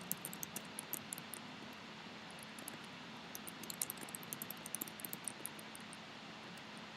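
Computer keyboard typing: quick runs of key clicks, one in the first second and a longer one in the middle, with pauses between, over a steady faint hiss.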